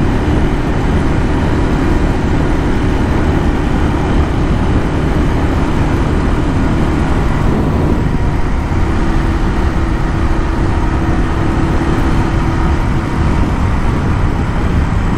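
Royal Enfield Classic 350's single-cylinder engine running steadily near full throttle at top speed, around 110–120 km/h, heavily mixed with wind rushing over the microphone.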